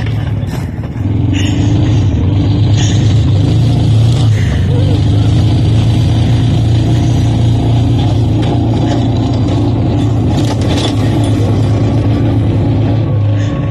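John Deere Gator utility vehicle's engine running steadily while towing a sled through snow, picking up speed about a second in, with scattered knocks and rattles.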